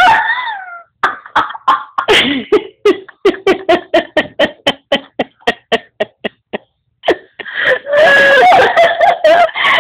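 A woman laughing in a fast run of short bursts, then, about two seconds from the end, a young woman breaking into a high, wavering cry.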